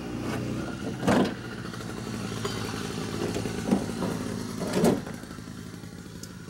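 Hardboard-and-vinyl door trim panel on a Bullnose Ford F-150 being pried and pulled off the door, its retaining clips popping loose in three sharp cracks about a second in, near four seconds and near five seconds. A steady low hum runs underneath.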